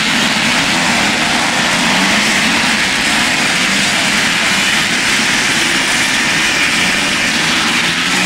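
Several vintage motocross motorcycles racing on a dirt track, their engines revving up and down in overlapping, wavering pitches as they ride past.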